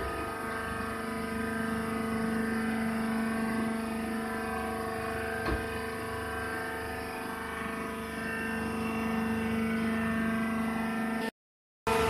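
Steady hum of a rice husk hydraulic baler's motor and pump running, with a single click about five and a half seconds in. The sound cuts out briefly near the end.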